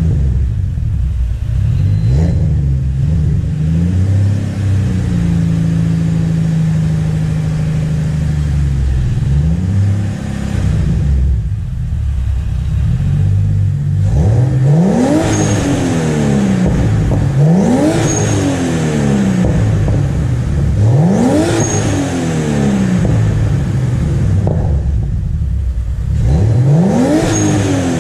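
Turbocharged BMW M52B28TU straight-six with a 3-inch exhaust and Magnaflow muffler being revved. The first half has slower rises and a held rev. The second half has four sharp blips, each with a brief high whistle at the top.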